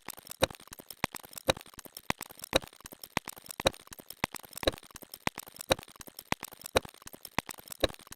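A rapid run of faint electronic clicks, with a stronger click about once a second.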